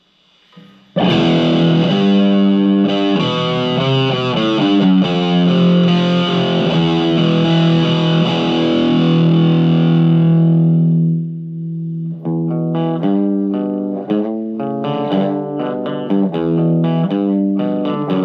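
Electric guitar played through a Marshall MG15MSII micro stack amplifier on its overdrive channel with the gain turned down a little, through the stock speakers. Distorted chords ring out from about a second in and die away near the middle, then a riff of separately picked notes follows.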